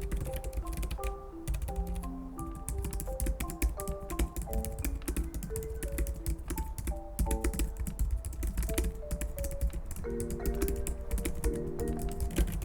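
Fast, steady typing on a thin scissor-switch (pantograph) keyboard, a run of soft, irregular key clicks, with background music playing under it.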